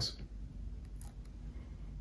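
Quiet room tone: a steady low hum with a single faint click about a second in.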